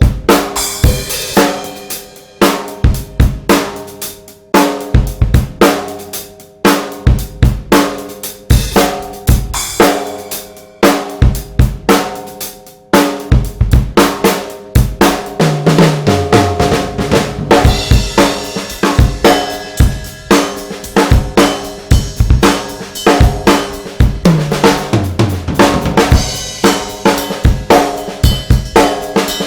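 Full drum kit played in a groove built around a DW Design Series 14x6.5 nickel-over-brass snare, left unmuffled so its crack rings out with overtones, along with kick drum and hi-hat. About halfway through the playing gets busier under a steady cymbal wash, with two tom fills that fall in pitch.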